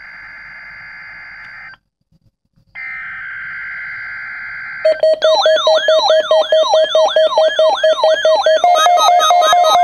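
Two bursts of screechy digital data tones, an Emergency Alert System header, each about two seconds long with a short silent gap between. About five seconds in, a louder synthesizer tune begins, with quick repeating swooping tones over a steady held note.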